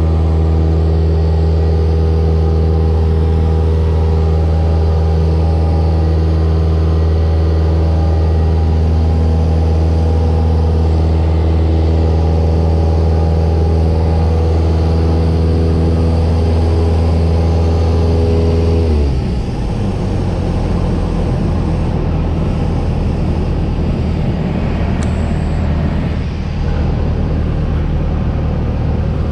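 Cessna 172S's four-cylinder Lycoming engine and propeller droning steadily in cruise, heard from inside the cockpit. About two-thirds of the way through, the steady drone suddenly drops in pitch and level to a rougher, windier rumble as power comes back, typical of the throttle being pulled to idle for a simulated engine failure.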